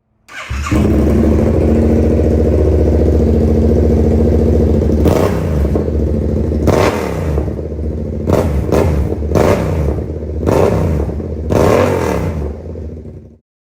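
Twin-cylinder sport motorcycle on an SC-Project CR-T exhaust, idling steadily for about five seconds and then revved in a string of short throttle blips, each a quick rise and fall in pitch. The sound cuts off abruptly near the end.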